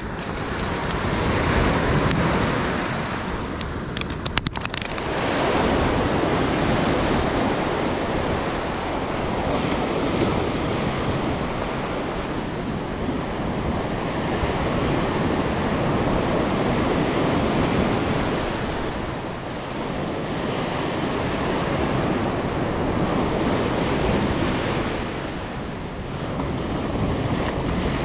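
Ocean surf breaking and washing up the beach, the rush of water swelling and fading in repeated waves. A brief run of clicks about four seconds in.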